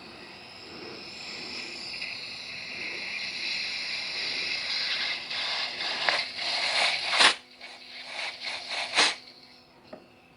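Compressed air from a shop air nozzle hissing into the low/reverse apply port of a 700R4 transmission case, growing louder for several seconds. It then breaks into a run of short, sharp blasts, the two loudest each cutting off suddenly. The air pressure is pushing the low/reverse clutch piston up out of its bore.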